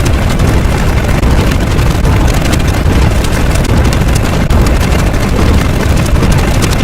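Loud, steady, dense noise heaviest in the bass, a sound effect with no clear pitch, that cuts off suddenly near the end.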